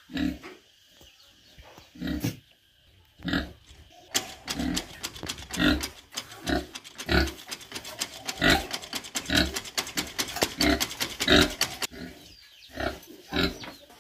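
Pig grunting in short separate grunts, breaking into a faster, denser run of grunts from about four seconds in until near the end, then back to single grunts.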